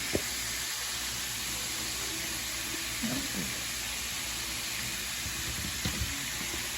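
Bull testicles deep-frying in a pot of hot grease: a steady sizzle, with a sharp click just after the start and a couple of small knocks near the end.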